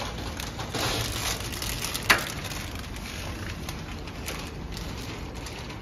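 Clear plastic packing film crinkling and rustling as it is handled and pulled over the rollers of a packing machine, with irregular crackles and one sharp snap about two seconds in.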